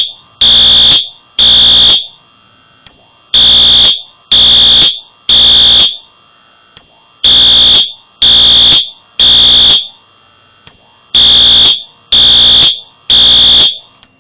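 Wheelock AS fire alarm horn sounding in the temporal-3 evacuation pattern: three loud half-second blasts, a pause, and the group repeats about every four seconds, with a faint tick between groups. The horn stops near the end.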